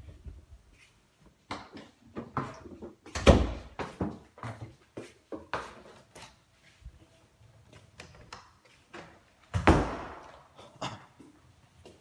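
Footsteps and handling knocks from a phone carried by hand while walking, with two louder thumps, about three seconds in and near ten seconds.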